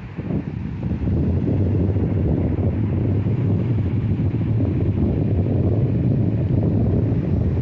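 Low, steady rumble of wind buffeting the microphone at the seashore, with the sea's surf beneath it; it swells about a second in and then holds.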